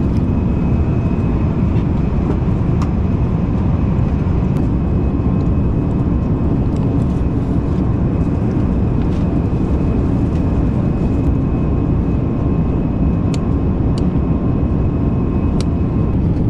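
Airliner cabin noise: a steady, even rush of engine and airflow noise, low and constant, with a faint steady hum and a few small clicks.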